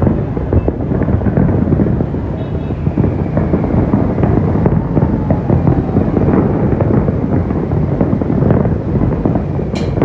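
Fireworks going off in a dense, continuous crackling and popping, over a steady low rumble.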